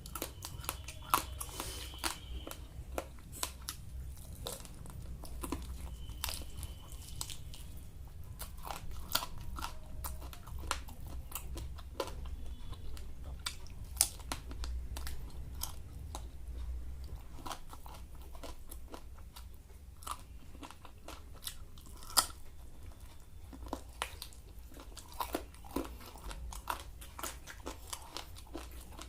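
Close-up biting and chewing of crispy fried food, with irregular sharp crunches and a few louder bites.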